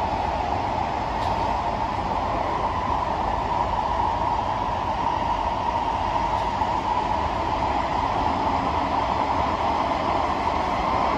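Kawasaki–CSR Qingdao Sifang C151B metro train in motion, heard inside the passenger car: steady running noise of wheels on rail.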